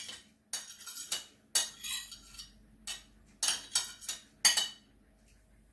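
A spoon clinking and tapping against a glass mixing bowl, about seven sharp, irregular knocks with a short ring, as diced ham is knocked off into the egg-and-cream quiche filling.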